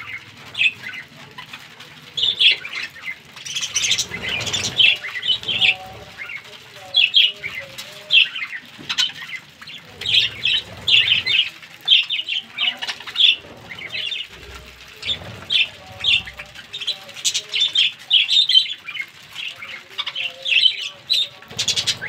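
A flock of budgerigars chirping and chattering without a break, short warbling calls overlapping each other, with flurries of wing flapping about four seconds in and again near the end.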